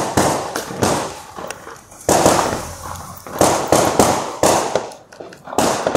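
Fireworks and firecrackers going off around the street: a rapid, irregular string of sharp bangs, several a second at times, each with a trailing echo, the loudest about two seconds in.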